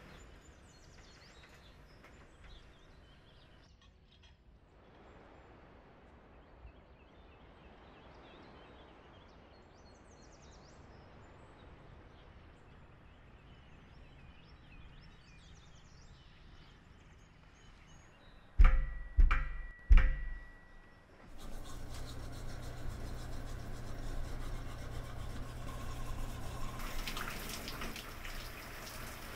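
Faint room ambience with a few faint bird chirps, broken about two-thirds of the way through by three heavy, deep thuds in quick succession. Then a steady rush of running water in a bathroom fills the rest.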